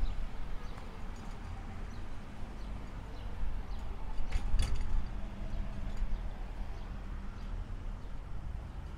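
Street ambience: a steady low traffic hum under light, regular footsteps on a paved footpath, with a brief clatter of sharp clicks about halfway through.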